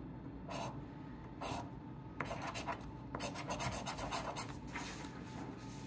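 A coin scraping the coating off a scratch-off lottery ticket: two separate strokes, then a quick run of short rasping strokes from about two seconds in.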